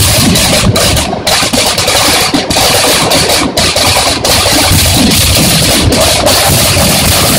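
Black-powder fireworks going off at ground level in a loud, unbroken barrage of crackling bangs, with only brief dips.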